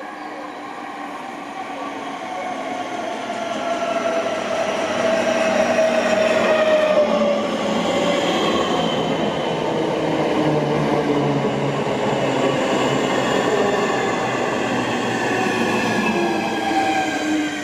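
Southeastern Class 465 Networker electric multiple unit approaching and running past alongside the platform, getting louder over the first few seconds. Its motor whine falls in pitch over the steady rumble of wheels on the rails.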